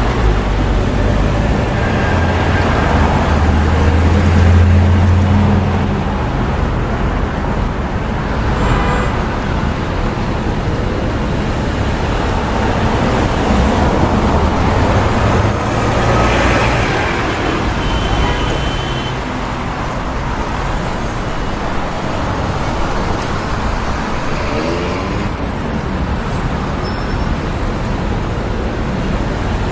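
Busy city street traffic: a steady wash of cars and buses passing, with a low engine hum swelling and fading a few seconds in.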